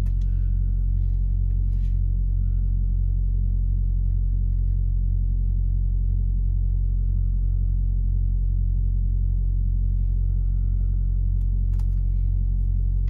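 Semi truck's diesel engine idling steadily, a constant low hum heard from inside the cab.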